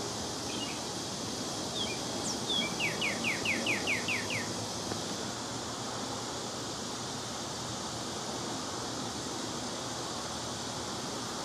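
A songbird sings a short phrase about two seconds in, a rapid run of about eight down-slurred whistled notes, over a steady outdoor hiss.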